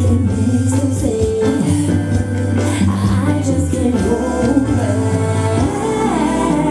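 A woman singing a pop song into a microphone over backing music, with held bass notes and light percussion underneath.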